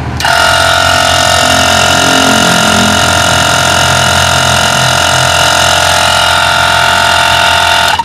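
Yankee air horn, fed by a 12 V compressor and tank and switched by a magnetic relay, sounding one long, steady blast of several tones together, truck-like. It starts just after the opening and cuts off suddenly at the end.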